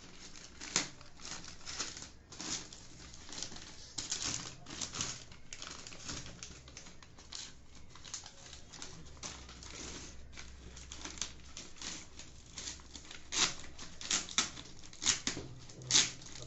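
Heavy paper courier bag being slit and torn open with a blade: irregular scraping, ripping and crinkling of the paper, with several sharper, louder rips near the end.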